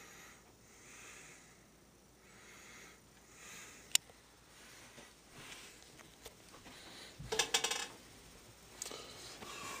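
Slow, regular breathing close to the microphone, one soft breath about every second. A sharp click comes about four seconds in, and a louder rustling scrape of the camera being handled about seven seconds in.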